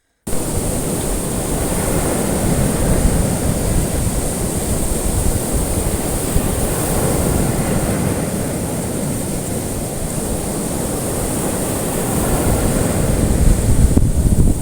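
Ocean waves washing in a steady rush of surf, with a split-second dropout to silence right at the start.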